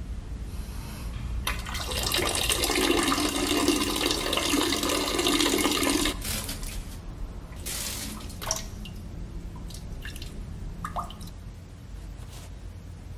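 A man urinating into a toilet bowl: a steady stream splashing into the water starts about a second and a half in and runs for about four and a half seconds, then tails off into a few short spurts and drips.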